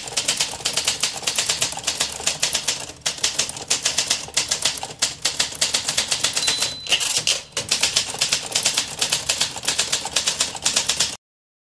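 Typewriter sound effect: a rapid run of keystroke clacks with a few short pauses, stopping abruptly shortly before the end.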